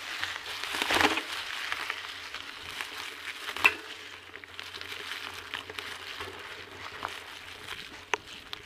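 Bicycle tyres rolling over dry leaf litter and loose stones on a forest track, a continuous crunching with many rattling clicks and knocks from the bike. The sharpest knock comes about three and a half seconds in.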